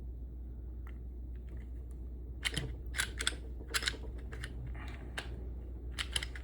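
Metal clicks and clacks of a Smith & Wesson M&P Shield 9mm pistol's slide and frame being handled during reassembly. The clicks are scattered, starting a couple of seconds in, over a steady low hum.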